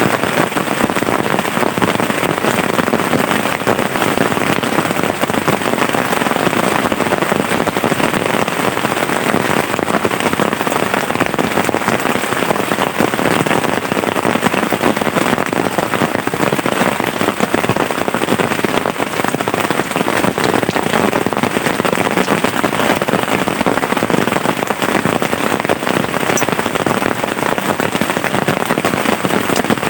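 Heavy rain falling steadily, a loud, dense patter of countless drops with no let-up.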